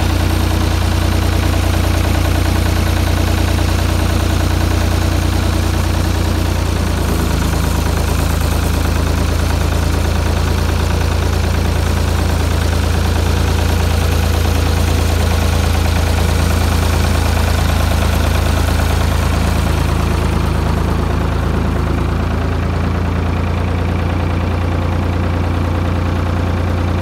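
Farm tractor engine idling steadily, with a small shift in its engine note about seven seconds in.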